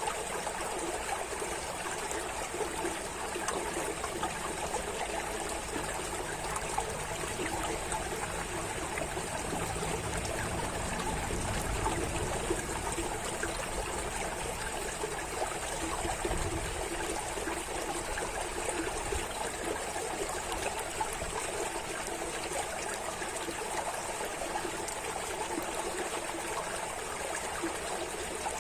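Running water trickling and splashing steadily, without pause.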